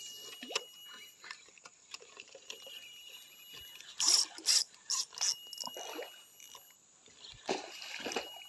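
Irregular splashing at the creek surface as a snakehead (bujuk sirih) strikes at a lure being retrieved, loudest in a cluster about four to five seconds in and again near the end.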